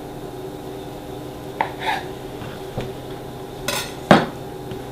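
Kitchen knife cutting through a block of currant dough on a laminate worktop: a few light taps and scrapes of the blade on the counter, then a sharp clatter and a loud knock about four seconds in.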